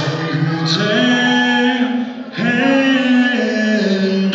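A man singing long held notes into a microphone, amplified in a large hall, in two phrases with a short break about two seconds in.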